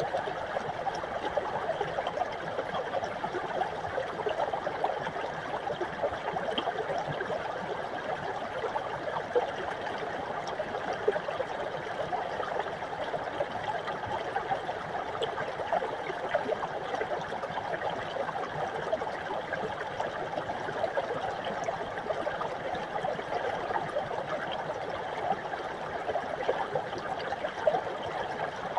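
Small mountain brook running over rocks: a steady babbling trickle with little splashes and gurgles.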